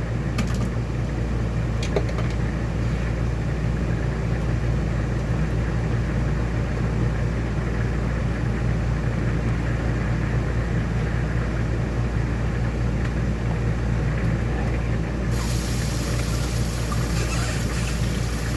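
Heavy rain pouring steadily, with a strong low rumble beneath it. A few light clinks come near the start, and a brighter hiss joins about fifteen seconds in.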